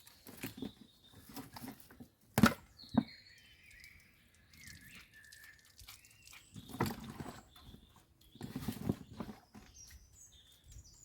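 Small birds chirping in the background while a handful of silver birch leaves is wetted and squished by hand: a sharp knock about two seconds in, then two short bursts of wet rustling.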